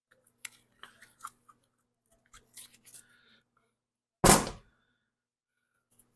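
Light clicks and rustling as parts are handled, then a single loud thump a little past four seconds in.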